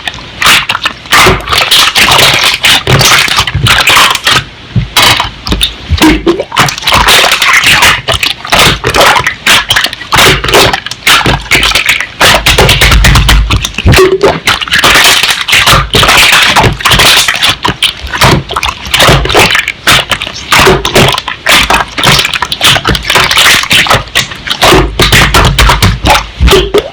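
Slime being squished and pressed by hand, making a dense run of sticky clicks and pops.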